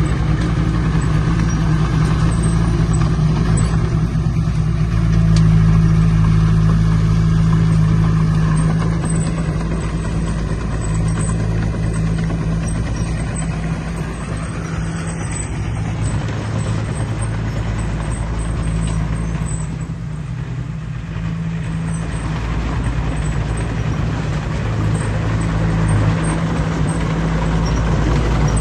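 Diesel engine of heavy earthmoving machinery running steadily, a low even drone that eases off a little about two-thirds of the way through and builds again near the end.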